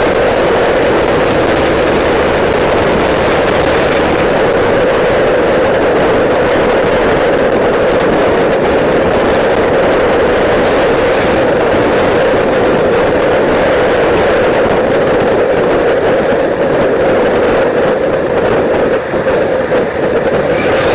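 Straight-piped 6.5 Detroit Diesel turbo V8 of a GM K3500 dually pickup, running steadily at cruise with a loud, even drone. It dips briefly near the end.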